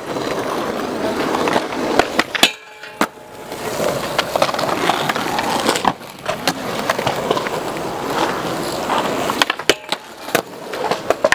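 Skateboard wheels rolling over a concrete skatepark floor, broken by sharp clacks of the board popping and landing, with a short silence while it is in the air about two and a half seconds in. Near the end, the board slides along a metal handrail, and several clacks follow.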